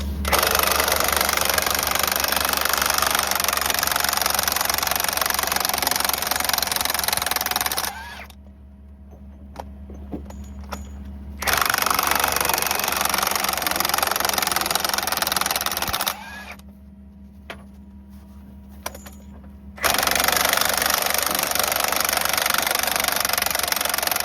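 Heavy electric impact wrench hammering on the bulldozer's track frame bolts in three long runs of several seconds each, with short pauses between. A steady low hum runs underneath.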